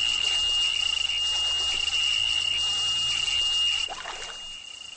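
Steady high-pitched buzz from a spinning reel as a pike takes the dead bait and runs with the line; it drops away sharply about four seconds in.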